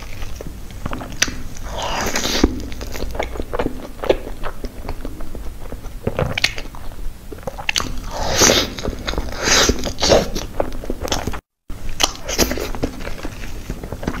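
Close-miked eating of a cream-filled crepe cake: wet chewing, bites and mouth clicks, with the soft squish of the crepe layers and cream being pulled apart by hand. The sound cuts out for a moment about eleven seconds in.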